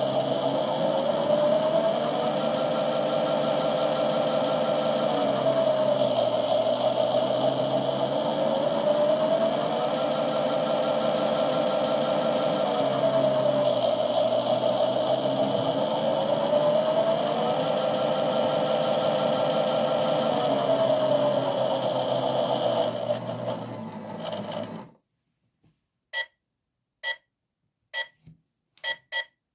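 Washing machine running a synthetic 60° program, its motor whine rising and falling in pitch every few seconds as the drum speeds up and slows. The sound winds down and cuts off about 25 seconds in, followed by a series of short beeps.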